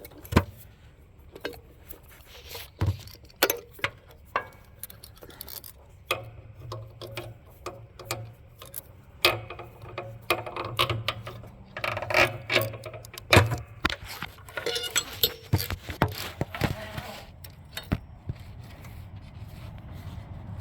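Irregular clicks, knocks and light metallic rattles as a control cable is worked by hand around a riding mower's frame and brake pedal, with a few louder knocks in the middle.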